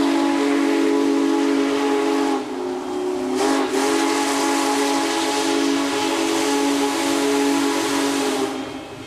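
Union Pacific Big Boy No. 4014's steam whistle blowing one long, loud chord of several notes over a hiss of steam. It falters briefly partway through and cuts off near the end.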